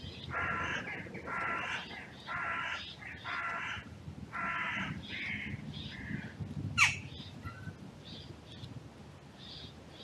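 Carrion crow cawing: a run of about five harsh caws in the first five seconds, followed by a few shorter, weaker calls. Near seven seconds a very brief, sharp high sound is the loudest moment, and faint small-bird chirps sound in the background.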